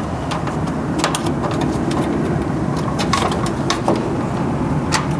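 Short sharp clicks and snaps of wire terminals being pushed onto an HVAC contactor's spade terminals: one about a second in, a cluster around three to four seconds in, another near the end. A steady low rumble runs underneath.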